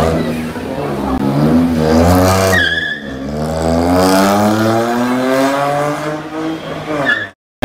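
Volkswagen Polo GT's engine and exhaust revving under acceleration: the note rises and falls, with a brief high note about two and a half seconds in, then climbs steadily in pitch for about four seconds before cutting off abruptly near the end.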